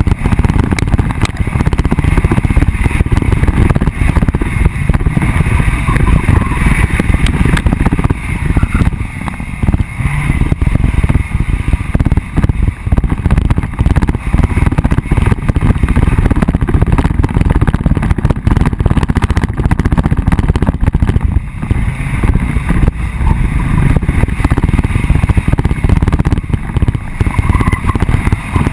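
Off-road vehicle driving over rough dry dirt: a loud, continuous rumble of engine and ground noise with constant jolts and knocks from the bumpy track.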